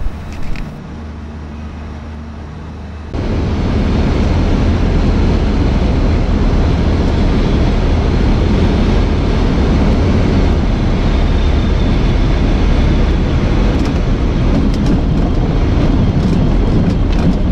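Skyranger Swift microlight's Rotax 912 flat-four engine and propeller droning steadily on final approach. About three seconds in, the sound jumps louder to a rough rush of wind noise over the engine that holds steady.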